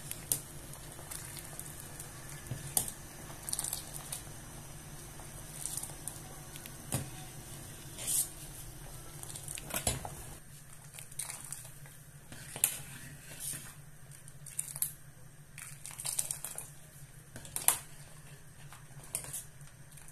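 Thick barley semolina soup simmering in a steel pot, bubbling with irregular pops and plops every second or two over a steady low hum.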